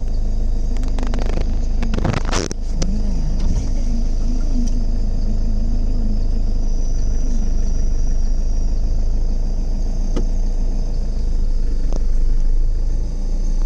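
Vehicle engine running steadily with a low rumble. About two seconds in there is a brief loud sound, and a wavering low tone rises and falls through the first half.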